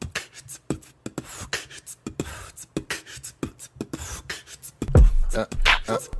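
Opening of a hip-hop track: a quick, irregular run of sharp clicks and short percussive hits, then about five seconds in a heavy, deep bass beat comes in much louder.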